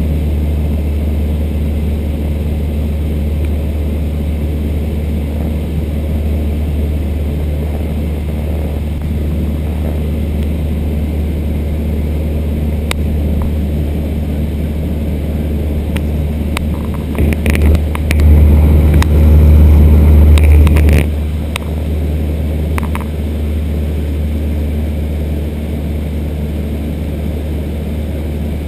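Steady drone of a high-wing light aircraft's piston engine and propeller in cruise flight. About two-thirds of the way through it grows louder and rougher for a few seconds, then settles back to the steady drone.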